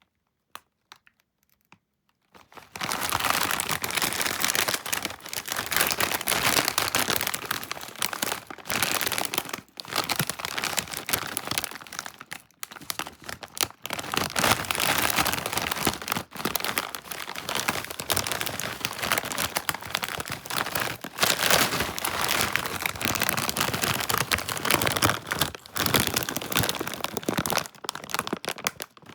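Plastic chip bag crinkling as it is handled and crumpled. The crinkling starts about two seconds in and goes on in dense runs broken by short pauses.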